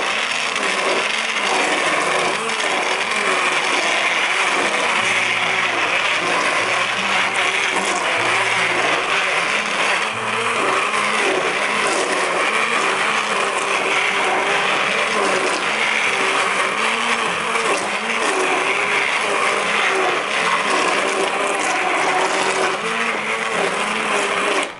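Handheld immersion blender running continuously in a stainless steel pot, pureeing thick, chunky huckleberry barbecue sauce, its motor pitch wavering as the blade works through the berries. It switches off abruptly at the very end.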